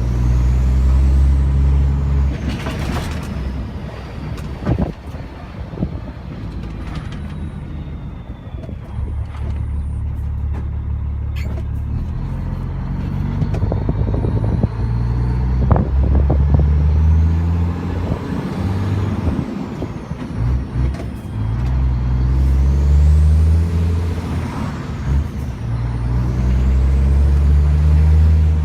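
Renault Magnum 440 E-Tech's 12-litre Mack six-cylinder diesel pulling hard through repeated gear changes on its ZF 16-speed gearbox. The engine note climbs, drops at each shift and climbs again, with the turbo whistle rising and falling over it.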